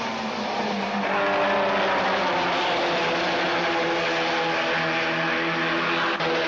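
Several Citroën AX Sport race cars' small four-cylinder engines running hard at high revs as the pack races past, several engine notes sounding at once and holding fairly steady.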